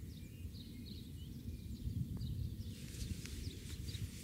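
Wind rumbling on the microphone, with small birds chirping over it again and again in short, high, falling notes.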